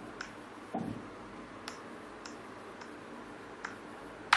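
Chalk writing on a chalkboard: a series of faint, irregular clicks and taps as the chalk strikes the board, with a louder tap near the end.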